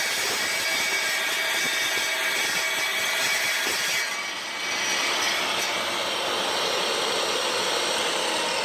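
Wet tile saw running and cutting through a porcelain tile: a steady high whine with the grinding of the blade in the tile, dipping briefly about halfway through.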